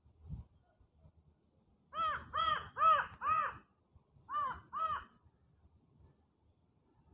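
A crow cawing: four calls in quick succession, then two more after a short pause.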